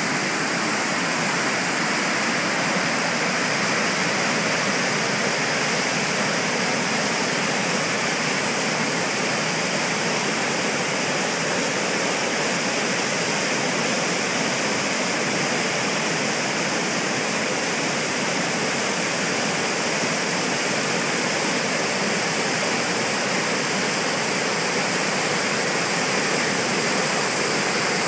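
Big whitewater rapids on a large river, a steady, unbroken rush of water.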